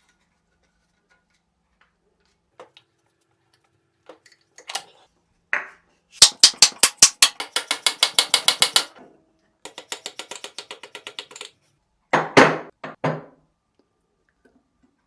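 Metal clicking from work on an old horizontal milling machine being taken apart: a few scattered knocks, then two fast runs of sharp clicks at about eight a second, and a louder knock near the end.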